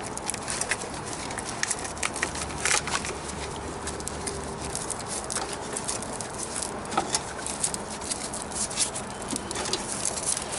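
Irregular small clicks and crackles of a car's wiring harness being handled and pulled apart with gloved hands, wires and tape rubbing and snapping against each other.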